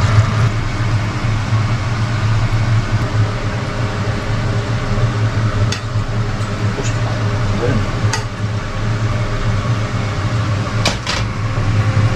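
Steady low hum of a running electric motor, with a few faint clicks in the second half.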